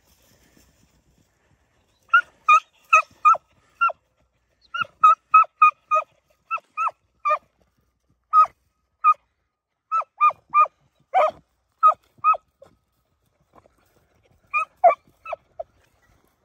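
Beagle hounds giving tongue while trailing rabbit scent: a series of short, sharp barks, two to three a second in bunches with brief pauses, starting about two seconds in.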